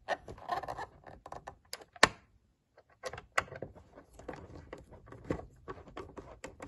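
A Phillips screwdriver driving a screw back into a plastic battery cover, with the cover handled against the plastic housing. It makes a run of small clicks and ticks, one sharper click about two seconds in, and a short pause just after.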